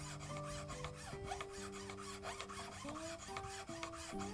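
A flat hand file rasping across a small red-cedar duck-call soundboard clamped in a vise, in quick, even back-and-forth strokes, filing the knife-cut wood flat.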